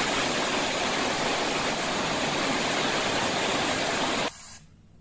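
Torrential rain and a muddy flash flood rushing past, heard as a dense, steady rush of noise that cuts off suddenly about four seconds in.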